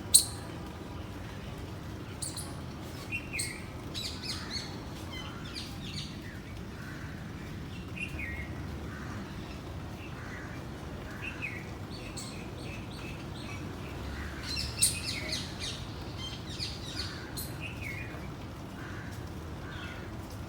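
Small birds chirping and trilling in short clusters over a steady low background rumble, with a single sharp click just at the start.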